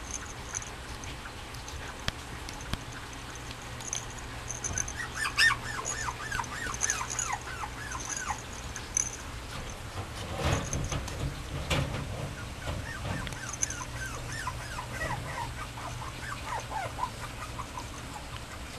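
Mame shiba puppy giving runs of short, high, falling whimpers, several a second, while mouthing a plush toy. A few soft knocks and rustles come in the middle.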